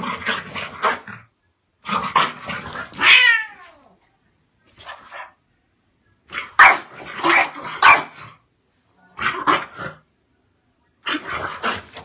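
French Bulldog barking playfully in about six short bouts with silent gaps between them. A cat's growling is mixed in, along with a falling cry about three seconds in.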